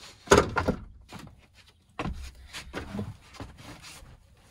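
Knocks and thumps of handling on a bare plywood floor: a canister vacuum cleaner being moved and set down, then someone climbing onto the floor on hands and knees. The loudest knocks come about a third of a second in, with a few more about two to three seconds in.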